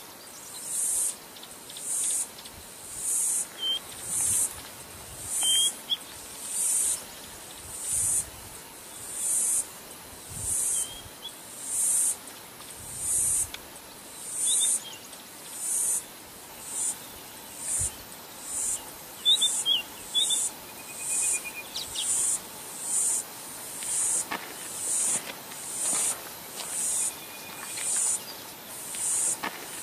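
Insects calling in a steady rhythm of high-pitched buzzing pulses, about one a second, coming a little faster in the second half, with a few faint bird chirps.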